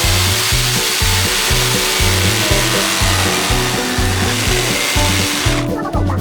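Electric power tool working an oak board, a steady hiss that cuts off near the end, over background music with a steady beat.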